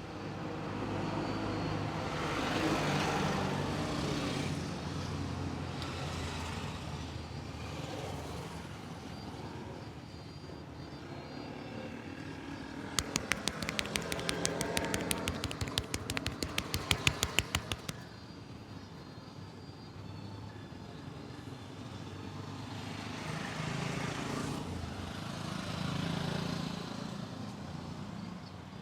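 Street traffic going by, swelling and fading. About halfway through, a run of quick hand taps from a head massage lasts about five seconds, several a second, and grows louder before it stops.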